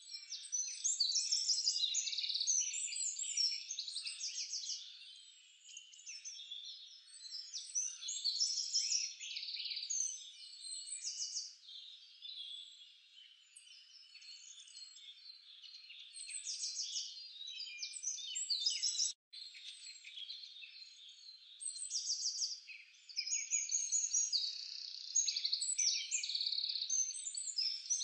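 A dense chorus of high-pitched animal calls: overlapping chirps and fast pulsed trills, cutting out briefly about 19 seconds in.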